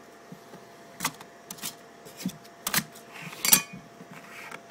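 Metal dip-can lids clicking and clinking as they are handled: a series of light, separate knocks, the loudest about three and a half seconds in with a brief ring.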